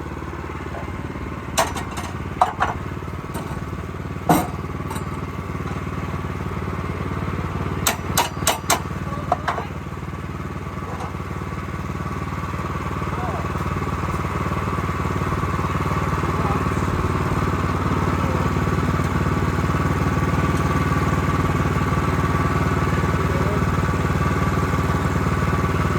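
Engine of a Bushlander HM122 portable sawmill running steadily, with a scatter of sharp knocks and clanks in the first ten seconds. Its sound grows louder about halfway through and then holds.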